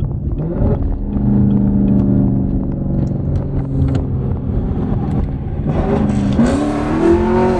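Chevrolet Camaro SS 1LE's 6.2-litre V8 heard from inside the cabin, running at a steady drone as the car drives along. Near the end the revs climb under acceleration, the exhaust getting much louder, then fall away.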